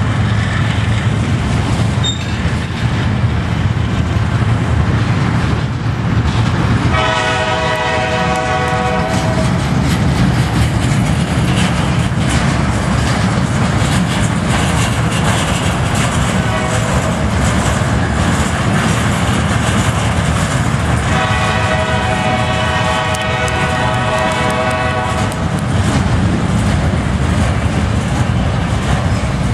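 CSX freight train of loaded steel-slab flatcars rolling past, with a steady heavy rumble of wheels on rail, the diesel locomotive's engine strongest at first. The locomotive's horn sounds twice: a blast of about two seconds some seven seconds in, and a longer one of about four seconds near twenty-one seconds in.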